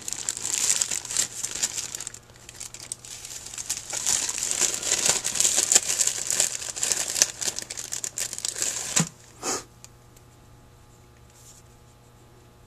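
The clear plastic bag of a carburetor rebuild gasket kit crinkles and crackles steadily as it is handled and rummaged through. It stops after about nine seconds, with one brief rustle just after.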